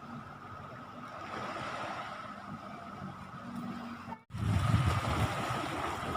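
Seaside ambience of wind and surf, a steady rushing noise. About four seconds in it drops out for a split second and returns louder, with gusty low rumbling of wind on the microphone.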